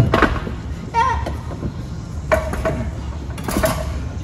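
A few metal knocks and clinks as a BMW M3 E36 gearbox is worked into place against the engine from underneath, over a steady low hum.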